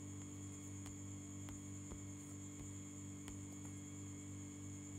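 Steady low electrical hum with a faint high whine above it, and a few faint ticks.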